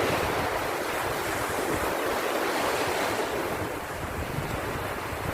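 Steady rushing noise with irregular low rumbles of wind buffeting the microphone.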